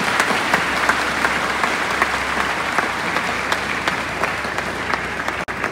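A large crowd applauding in a sustained ovation, many sharp individual claps blending into a steady wash.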